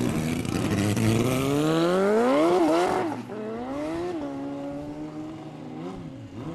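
Sport motorcycle launching off the drag-strip start line at full throttle, its engine revs climbing hard with an upshift about three seconds in and another about four seconds in. It grows fainter as it pulls away down the strip.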